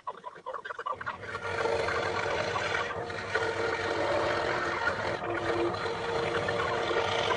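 Electric scroll saw running, its blade cutting through wood with a steady buzz. The sound drops out briefly at the start and picks back up about a second in.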